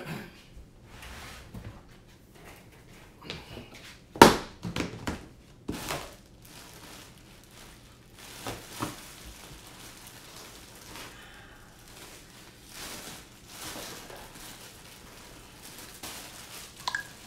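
Someone rummaging through parts storage for a connector and wire: scattered knocks, clicks and rustling, the loudest a sharp thunk about four seconds in.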